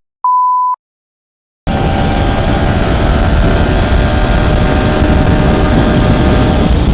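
A short, pure beep tone in a moment of dead silence, like an edited-in censor bleep. About two seconds in, a motorcycle engine running at steady cruising speed comes back, under heavy low wind rumble.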